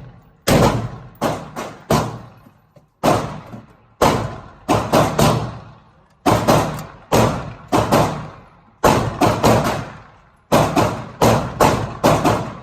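Semi-automatic gunfire: about twenty shots fired in an uneven string, single shots mixed with quick runs of two to four, each sharp crack trailing off.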